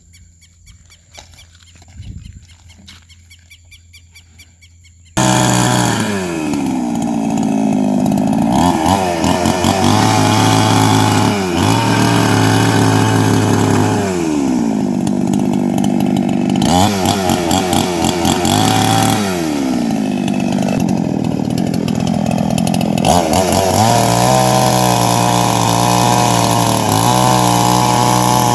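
Two-stroke chainsaw coming in abruptly about five seconds in, then revved hard in repeated bursts that fall back to idle between them, about five times, and held at high revs near the end.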